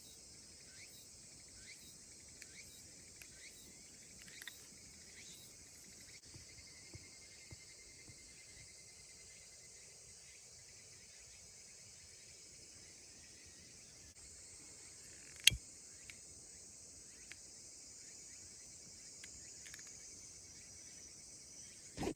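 Insects chirping in a steady, high-pitched chorus, with one sharp knock about fifteen seconds in.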